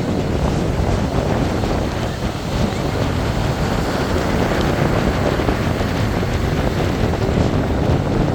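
Strong wind buffeting the microphone over the steady wash of surf.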